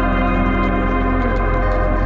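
Background ambient music of slow, held organ-like chords.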